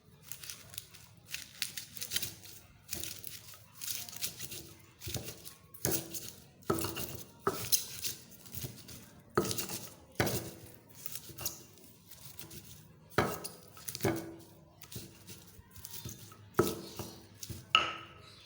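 Pestle pounding sugi-sugi leaves in a cobek mortar: uneven knocks roughly once a second, some sharper and louder than others, as the leaves are crushed.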